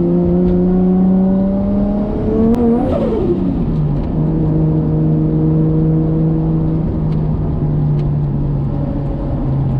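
Modified 550 hp Nissan RB25DET turbocharged straight-six in an R33 Skyline, its note climbing slowly under throttle. About three seconds in the driver lifts off, the engine note drops sharply and a brief high turbo whistle rises. It then cruises at a steady lower note.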